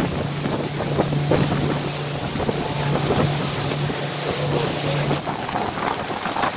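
A motorboat under way at speed: its engine makes a steady low hum under loud wind buffeting the microphone and water rushing past the hull. The hum drops out about five seconds in while the wind and water noise go on.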